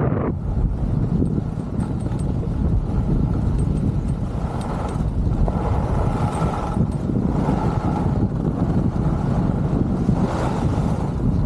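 Steady wind rush on the microphone of a skier gliding down a groomed slope, with the low rumble and hiss of skis on packed snow. Near the end it turns briefly hissier while passing through a timber-lined tunnel.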